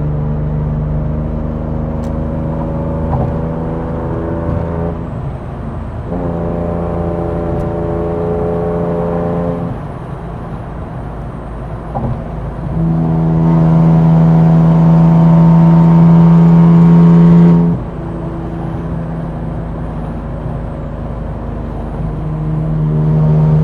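Infiniti Q60's twin-turbo V6 on an E85 tune with full bolt-ons, under way at a steady pitch; about 13 seconds in it gets much louder under throttle for some five seconds, then drops back suddenly as the throttle is lifted.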